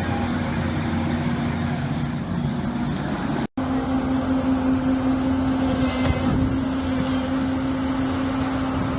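Heavy-machinery engine running steadily. The sound cuts out abruptly about three and a half seconds in, then an engine runs on with a steady hum.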